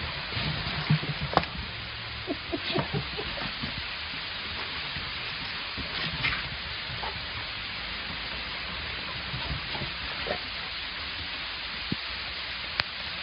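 Hail falling: a steady hiss with scattered sharp ticks, and a few low thumps in the first three seconds.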